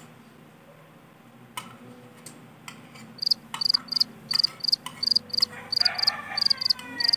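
Cricket chirping sound effect, a short high chirp repeated about three times a second, starting about three seconds in after faint clinks of cutlery. Near the end a falling, sliding tone plays over it.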